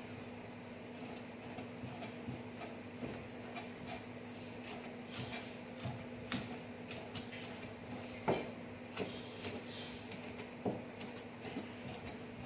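Chef's knife chopping spring onion stalks on a plastic cutting board: irregular light knocks of the blade meeting the board, a few louder ones a little past the middle, over a steady low hum.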